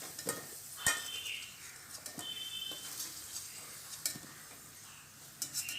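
Potatoes sizzling in oil in a kadai, with a spatula knocking and scraping against the pan a few times: once about a second in, again around four seconds in and in a quick cluster near the end.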